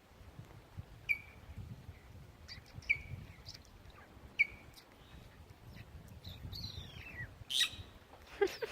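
A wren chirping: a few short, sharp chirps spaced a second or two apart, then a quick falling trill about six and a half seconds in and a louder high note just after.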